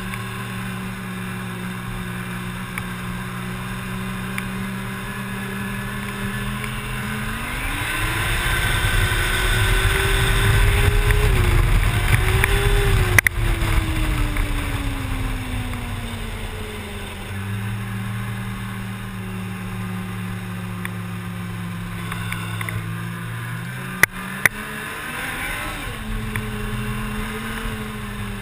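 Snowmobile engine, heard from the rider's seat, running at a steady cruising speed. About a quarter of the way in it speeds up, the pitch climbing and getting louder, then eases back down. It picks up again briefly later, and there are a few sharp knocks, one at the loudest point and two close together later on.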